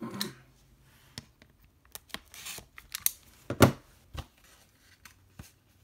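Blu-ray packaging being handled: scattered clicks and rustles, with a louder knock about three and a half seconds in.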